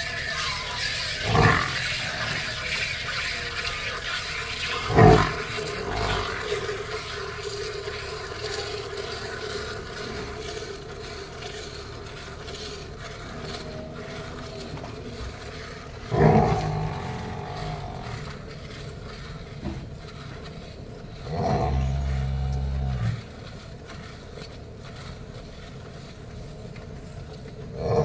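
Hand-milking of a buffalo: streams of milk squirting into a steel bucket, a steady frothy hiss that turns duller in the second half. A few sharp knocks and a short low drone about three quarters of the way through.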